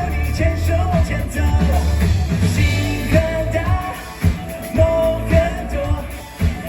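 A live pop-rock band playing at full level: drums and heavy bass, with a held melody line over the top.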